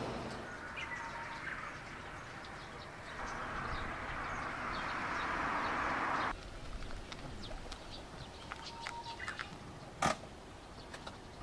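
Birds chirping in short, scattered high calls. For the first six seconds a steady rushing noise runs under them and cuts off suddenly, and there is one sharp knock about ten seconds in.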